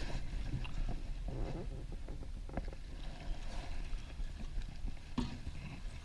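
Steady low wind rumble on the microphone with a few light knocks and clicks, about half a second, two and a half seconds and five seconds in, from handling gear in a small fishing boat.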